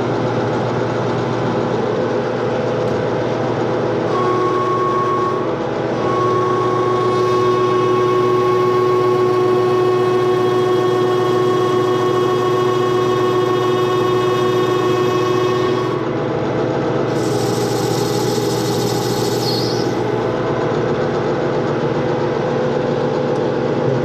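Metal lathe running with a steady motor hum while a carbide insert turns the splines off a hardened steel Chevrolet axle. From about four seconds in until about sixteen seconds a steady whine rides over the hum as the tool takes the interrupted cut across the splines, then a brief high hiss follows.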